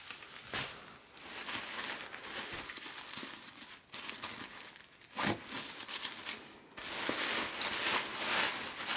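Thin ultralight tent fabric crinkling and rustling as the rolled-up tent is unwrapped and spread out by hand, with a couple of short sharper rustles. It grows louder and busier near the end as the folds are pulled open.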